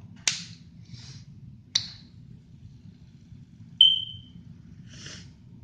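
A baitcasting reel being worked by hand, with two sharp clicks and soft rustles, and one short, high metallic ping about four seconds in, the loudest sound.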